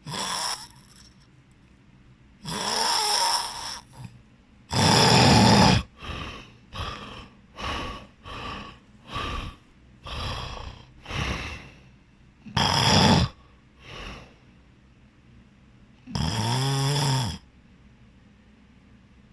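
A person snoring heavily in sleep, in irregular loud snores. A quick run of short breaths comes in the middle, and one longer snore near the end rises and then falls in pitch.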